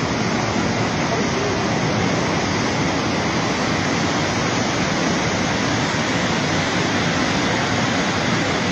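Loud, steady rushing of a muddy flash-flood torrent pouring down a river channel and over the road.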